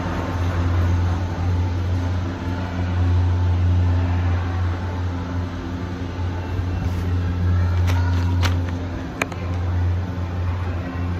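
Cable car terminal machinery humming: a steady low drone with a few sharp clicks about eight to nine seconds in.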